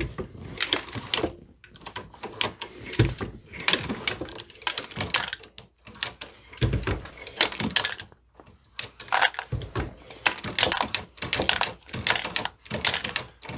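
Rifle brass being decapped on a reloading press with an FW Arms decapping die: irregular metallic clicks and clinks of brass cases being handled and dropped among other cases, with a few duller thuds from the press stroke as spent primers are punched out.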